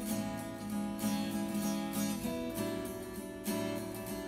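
Background music: an acoustic guitar strumming chords in a steady rhythm.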